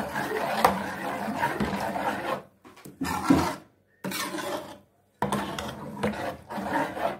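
A metal ladle stirring thick puréed saag in an aluminium pot, scraping along the bottom and sides with sharp knocks of metal on metal. It stops briefly a few times partway through.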